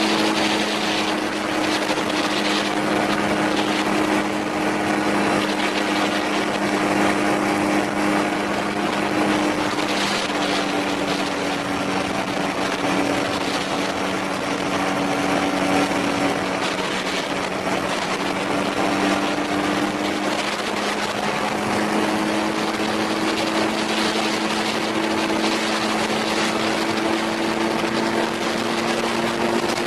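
Autogyro's Rotax 503 two-stroke twin engine and pusher propeller running steadily under power, with a wide hiss over the engine tone; the engine pitch sags a little midway and climbs again near the end.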